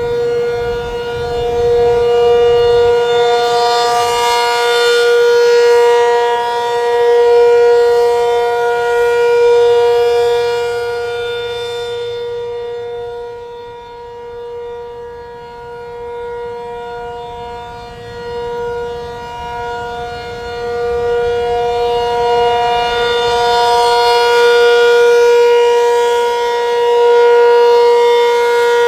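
Penetrator-50 outdoor warning siren sounding the steady Alert signal during a test: one unwavering wailing tone that swells and fades in loudness, dipping for several seconds midway before coming back up.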